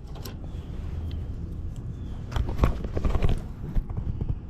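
Handling clicks and knocks as a component is moved and turned, a cluster of them past the middle, over a steady low rumble.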